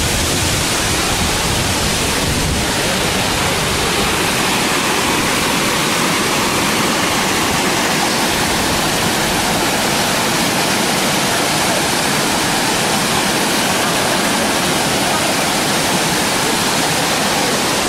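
Waterfall: a steady rush of white water pouring over rock ledges at the brink of the falls.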